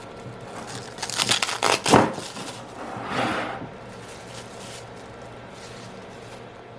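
Kitchen handling sounds while preparing food: crinkling, rustling noises, a sharp knock about two seconds in, then a brief softer rustle.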